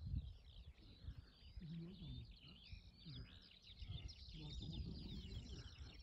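Several songbirds singing at once, a faint, continuous tangle of quick high chirps and trills.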